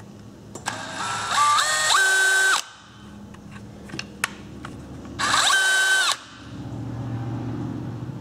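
DeWalt XR brushless cordless drill run with an empty chuck, twice: each time the motor whine climbs in steps as the trigger is squeezed, holds steady, then cuts off, the second run shorter. This is a test run of the freshly reassembled drill, with a few handling clicks between the runs.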